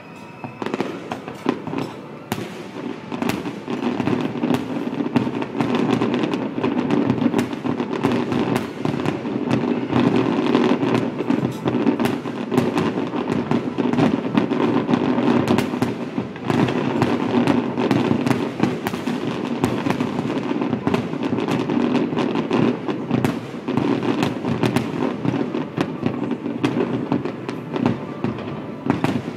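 Fireworks display: aerial shells bursting in a rapid, overlapping barrage of bangs. It builds over the first few seconds and then stays dense.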